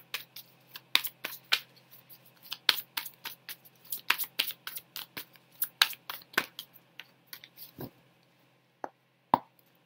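Tarot deck being shuffled by hand: quick, irregular card clicks and slaps several times a second that thin out about seven seconds in, leaving a few single taps near the end.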